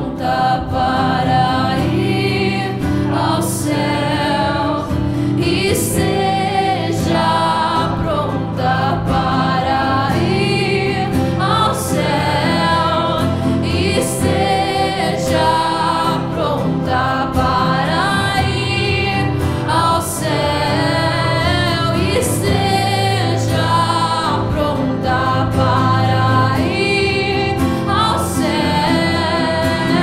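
A woman singing a worship song live, accompanied by acoustic guitar and keyboard.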